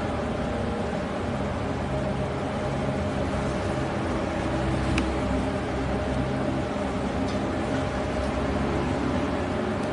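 Steady droning background noise with a low hum and a faint click about five seconds in.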